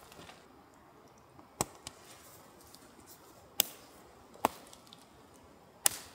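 Four sharp clicks, a second or two apart, as the Naturehike Massif tent's plastic pole clips are snapped onto its poles during pitching.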